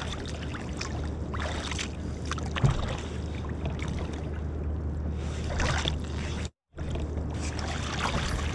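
Sea water splashing and sloshing against the kayak's side as a snoek is grabbed by hand and hauled out of the water, over a steady low rumble. The sound cuts out completely for a moment about six and a half seconds in.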